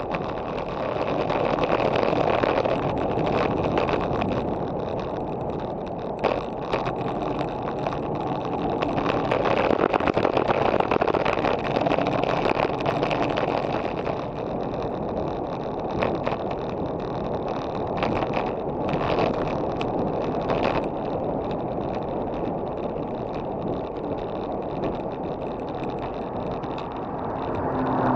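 Wind rushing over a bike-mounted action camera's microphone as a road bike rides at about 30 km/h, swelling and easing, with a few short knocks.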